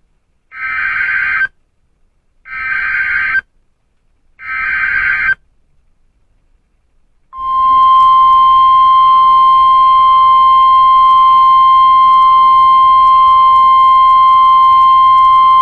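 NOAA Weather Radio alert broadcast from station KEC60: three short screechy bursts of digital SAME header data, about a second each with short gaps, then, after a pause, the loud steady warning alarm tone held for about nine seconds. This sequence marks the start of a new warning message.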